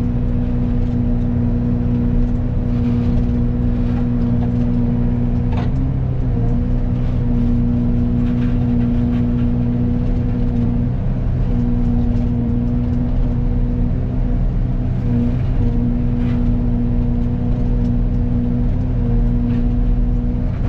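Excavator-driven Fecon forestry mulcher running at full speed over a steady engine drone, its hum dipping briefly in pitch a few times as the head takes load cutting into a poplar tree, with a couple of sharp cracks of wood.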